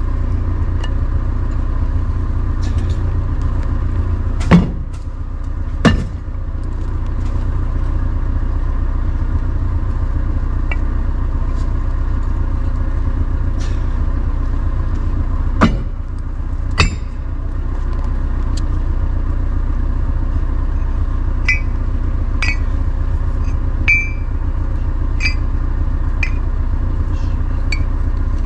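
An all-terrain vehicle (karakat) engine running steadily, with four loud sharp knocks. The two loudest come about four and a half and six seconds in, and two more come around sixteen seconds. Lighter clicks and short squeaks follow near the end.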